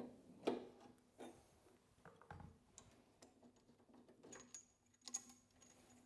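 Faint scattered clicks and light knocks as the braided steel water supply hose is unscrewed and pulled from the fitting under the humidifier's solenoid valve, with a slightly louder knock about half a second in and another just after five seconds.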